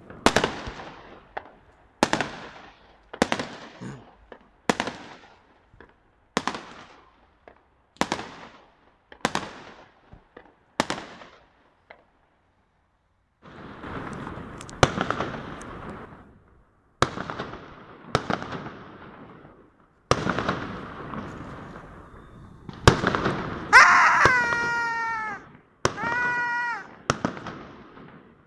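Aerial fireworks exploding one after another, about one bang every second or so, each bang echoing and fading between the buildings. The bangs break off briefly about twelve seconds in, then return denser with crackling. Near the end, two drawn-out, slightly falling tones sound over the bangs.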